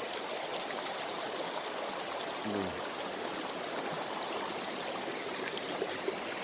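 A mountain stream rushing steadily over rocks in its bed, running high after rain.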